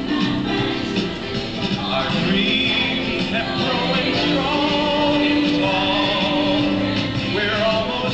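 Soundtrack music with singing from an old promotional film, played back over a gallery's speakers.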